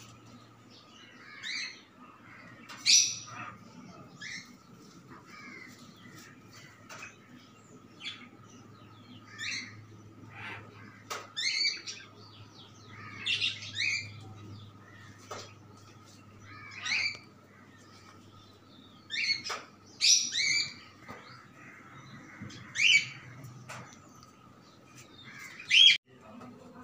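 Small cage birds in a bird colony chirping and squawking in short, sharp calls every second or two, over a faint steady hum.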